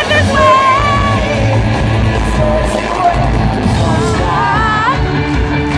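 Live pop-rock band playing in an arena, with electric guitars and drums under singing and some yelling, heard from among the crowd.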